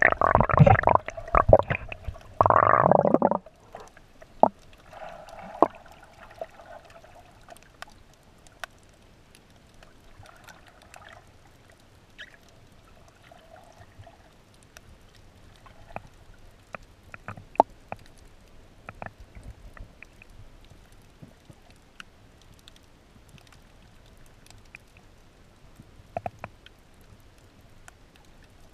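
Water sloshing and splashing loudly around a camera at the surface of shallow water for the first three seconds or so. After that come muffled underwater sounds: a faint hiss with scattered sharp clicks and pops.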